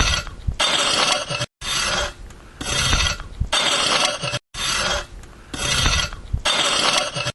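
Repeated rough rasping, scraping strokes, each lasting about half a second to a second, with quieter scraping between them. Twice the sound drops out completely for a moment and the same run of strokes starts again.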